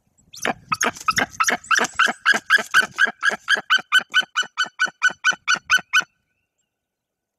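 White-tailed eagle giving its yelping call: a rapid series of sharp 'kyick' notes, about four a second for some six seconds, ragged at first and then even, stopping abruptly. It is an alarm or defensive call at an intruding adult eagle near the nest.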